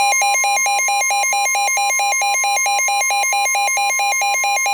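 Emergency Alert System attention tone: a loud, buzzy electronic alarm warbling rapidly between two pitches, several times a second, over a steady higher tone. It announces a severe thunderstorm warning.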